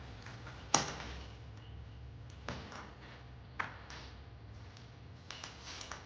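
A few sharp taps and clicks, as of small hard parts and tools being handled during light-fitting work, the loudest about a second in and a quick cluster near the end, over a low steady hum.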